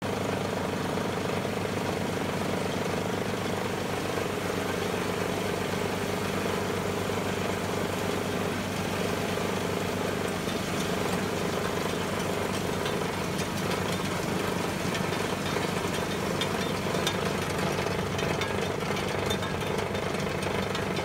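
Craftsman 24-inch MTD snow blower's engine running steadily. The owner believes the brass auger gear in its gearbox is stripped, so the engine runs without driving the augers.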